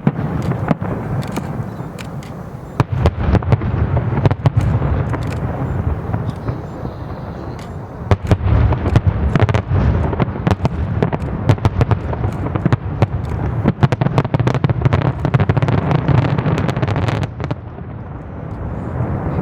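Fireworks display in full barrage: a dense, rapid run of bangs and crackles over a continuous low rumble of booms. It eases off briefly near the end.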